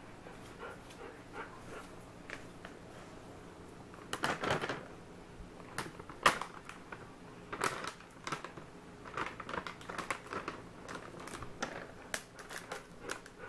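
Dogs moving about on a tile floor, their claws clicking and scuffing in irregular short clicks, with brief rustling noises; the loudest bursts come about four and six seconds in.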